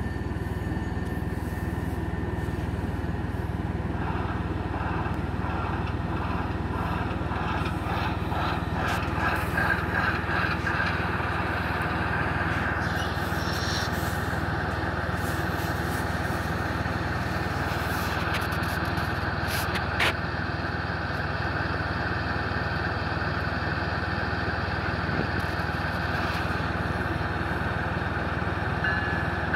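Diesel locomotive engine sound from the sound decoder of an HO-scale Athearn Genesis ES44AC model, running steadily through its small speaker, with a single sharp click about twenty seconds in.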